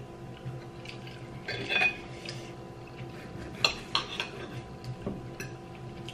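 Steak knife and fork clinking and scraping on a plate as a steak is cut, in a few short clusters, the sharpest clink about three and a half seconds in. A faint steady hum lies underneath.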